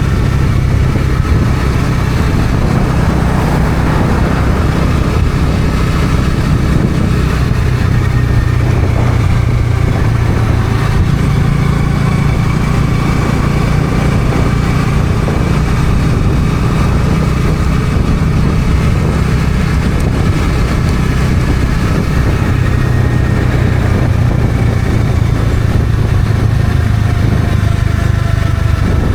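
Bajaj Dominar 400's single-cylinder engine running at a steady cruise while being ridden. Its exhaust note holds even, with only small rises and falls in pitch.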